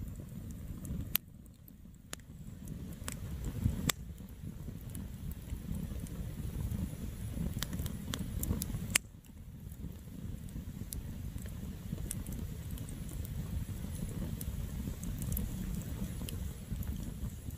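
Wood campfire burning: a low steady rush of flame with scattered sharp crackles and pops from the burning wood, a few of them louder.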